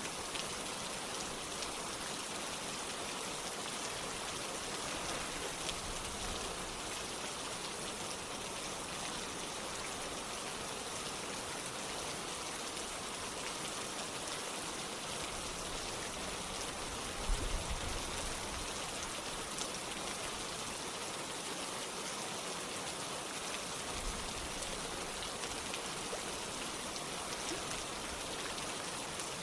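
Steady rain falling, with drops pattering on a surface and water running in the background. A brief low thump a little past the middle.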